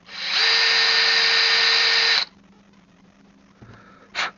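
Small electric drill with a 2.5 mm bit running steadily for about two seconds, then cutting off sharply; a brief second spin of the drill near the end.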